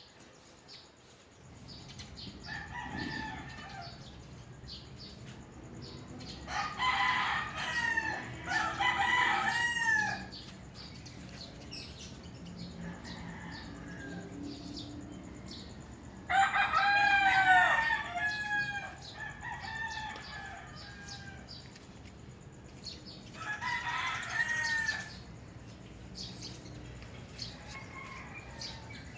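Roosters crowing several times, with small birds chirping throughout.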